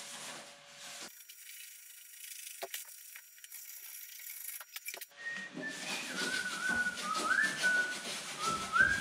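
A man whistling a tune, starting about halfway through, over the scratchy rubbing of a hand-held Scotch-Brite abrasive pad scuffing the steel wheel well before primer.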